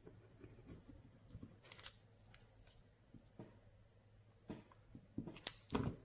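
Faint rustling and tapping of hands working a cardstock strip and a plastic liquid glue bottle on a craft table, with a few louder knocks near the end as the glue bottle is set down.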